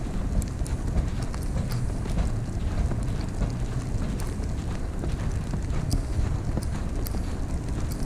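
Wind rumbling on the microphone and footsteps crunching on icy snow during a walk in a winter storm, with scattered sharp high ticks.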